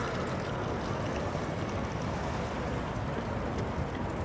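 Steady outdoor background noise, mostly a fluctuating low rumble with a faint hiss and a few light ticks above it.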